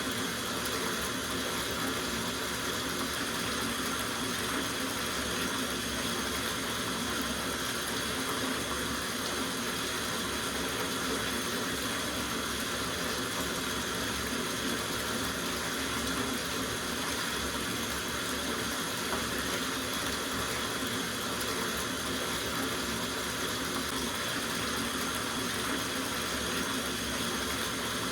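Water running steadily from a tap into a soaking bathtub, an even rush that doesn't change.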